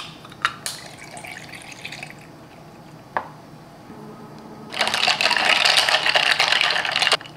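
Liquid poured over ice in a glass, with a few light clinks. About three-quarters of the way in, ice cubes rattle and clink against the glass for about two and a half seconds as an iced coffee is stirred with a straw. This stirring is the loudest part and stops abruptly.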